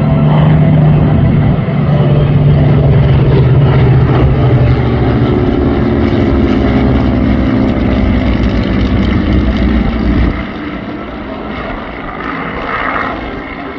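A formation of WWII piston-engined aircraft, a C-47 Dakota with two Spitfires and a Harvard, passes overhead with a loud, dense propeller and engine drone whose pitch sags slightly as it goes by. The sound drops away sharply about ten seconds in.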